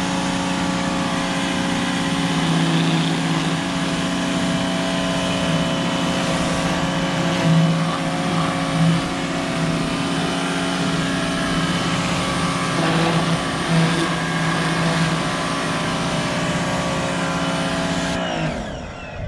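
Electric pressure washer motor running steadily with the hiss of its spray, then winding down in pitch and stopping near the end.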